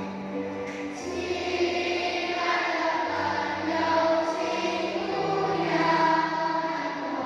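A group of primary-school children singing a Mandarin pop song in unison with musical accompaniment, the low notes held and changing every couple of seconds.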